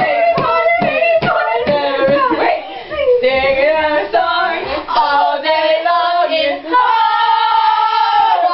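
Children singing unaccompanied, with a sharp tapped beat about two and a half times a second for the first two seconds, then longer held sung notes.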